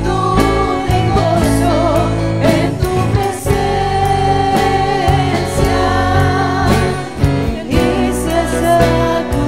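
Live Christian worship song: women singing into microphones with a keyboard and an acoustic guitar playing along.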